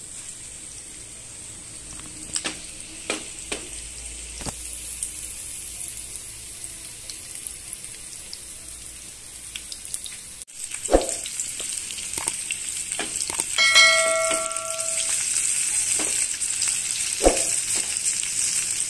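Semolina-coated mackerel pieces sizzling as they shallow-fry in hot oil on a high flame, with a few light clicks and knocks. The sizzle gets louder a little over halfway through, and a brief bell-like ring sounds about three-quarters of the way in.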